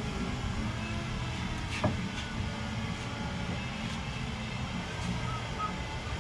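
Steady workshop background noise, with one sharp click or knock about two seconds in.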